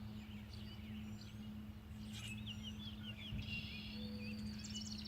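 Songbirds chirping and trilling, several short calls and quick trills through the whole stretch, over a steady low hum.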